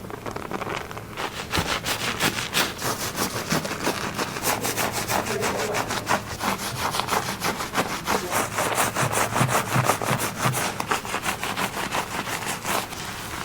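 Fingers scrubbing and scratching through hair and scalp in a head massage: a quick, rhythmic rasping of several strokes a second that grows stronger about a second in.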